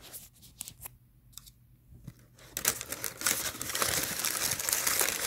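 Greaseproof paper liner in a paper chicken box being handled and pulled open: a few scattered light clicks at first, then from about halfway in a continuous loud crinkling and rustling of the paper.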